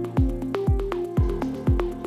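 Upbeat electronic background music: a kick drum strikes on every beat, about two a second, under short plucked synth notes.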